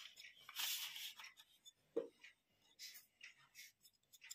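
Handling noise of a plastic LED batten tube light and its end cap being fitted: a brief rustle, a single plastic knock about two seconds in, then a few faint taps and clicks.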